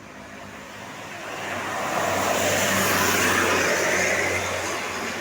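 A road vehicle passing by on the road: its noise swells about two seconds in and fades near the end, over a steady low engine hum.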